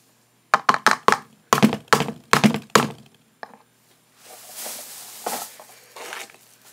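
Hands squeezing and working homemade slime: two quick runs of short sharp thunks, about a dozen in all, then a softer sticky rustle near the end.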